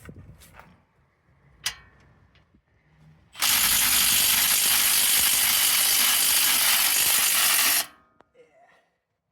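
Impact wrench hammering steadily on a bolt for about four and a half seconds, starting about three and a half seconds in, during a brake tear-down. A few light tool clicks come before it.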